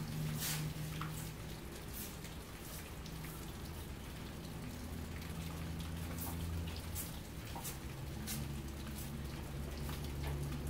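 A broom sweeping a concrete floor in short, irregular strokes, with rain dripping around it. A steady low hum runs underneath.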